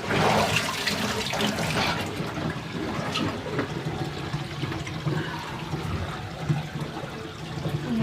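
Water draining out of a Giantex twin-tub portable washing machine's wash tub after the rinse, a steady gushing flow that is strongest for the first couple of seconds.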